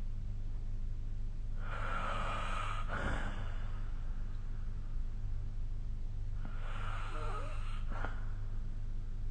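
A sleeping person snoring: two noisy breaths about five seconds apart, each lasting a second or so, over a steady low hum.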